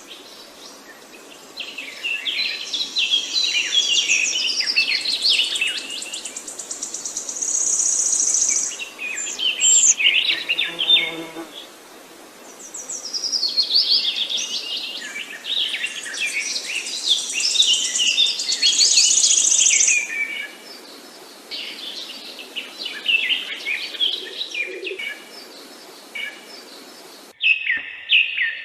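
A chorus of songbirds singing and chirping over one another in long bouts of rapid, overlapping song, with a high thin trill that comes and goes and brief lulls between bouts.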